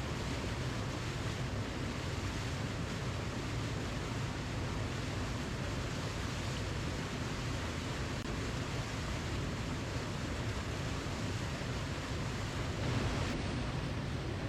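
Waterfall: a steady, unbroken rush of falling water, swelling slightly near the end.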